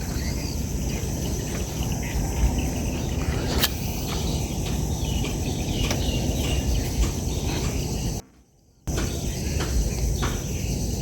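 Steady high insect chirring, crickets or similar, over a low outdoor rumble, with a few faint clicks. The sound cuts out completely for about half a second around eight seconds in.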